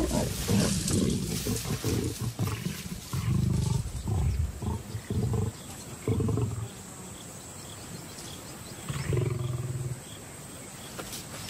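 Lions growling and snarling in a squabble over a carcass, as a young male lion lunges in among the lionesses at their kill. A loud snarl in the first second, then a series of shorter rough growls with quieter spells between, one more near the end.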